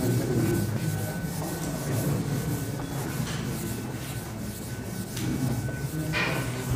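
Whiteboard eraser rubbing back and forth across a whiteboard, wiping off marker writing, with a sharper stroke near the end.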